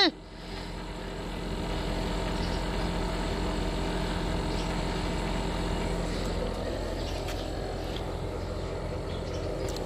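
A steady motor or engine hum with a low drone, building over the first second or so and then holding evenly.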